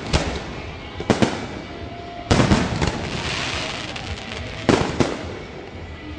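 Fireworks display: aerial shells bursting with sharp bangs about a second apart. One burst about two seconds in is followed by a long crackling shower, and two more bangs come close together near the end.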